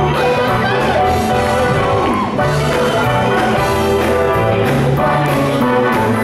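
Male vocal harmony group singing live with a backing band: sung lead and harmony voices over bass, guitar and drums, amplified through a PA.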